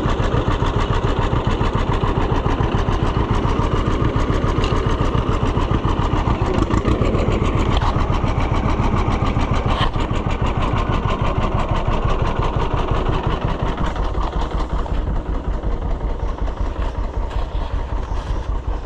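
Farm tractor engine running steadily, with a rapid, even firing beat. It gets a little quieter about fourteen seconds in.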